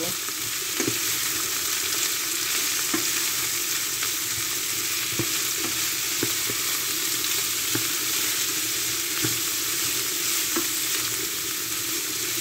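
Boiled vegetables sizzling in hot oil in a frying pan as they are stirred: a steady hiss, with a few light irregular clicks of the stirring utensil against the pan.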